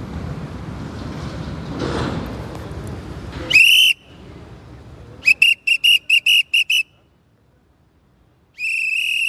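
A whistle blown as the signal that the rest break is over and the group must get up and walk on. After a few seconds of background noise there is one short blast, then a quick run of about nine short toots, then one longer, steady blast near the end.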